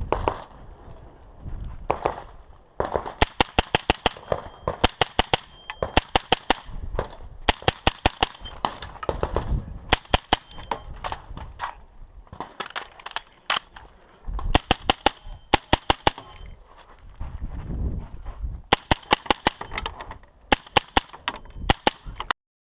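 Rifle gunfire in fast strings of several shots each, with short pauses between strings. The sound cuts off abruptly near the end.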